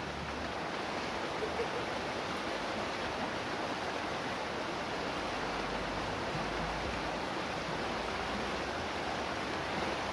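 Fast-flowing river rushing over rocks and small rapids: a steady rush of water.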